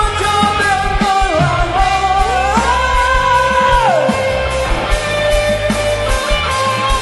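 Live rock band playing: a singer holds long notes over electric guitars, bass and drums. The held line slides down about a second in and again about four seconds in.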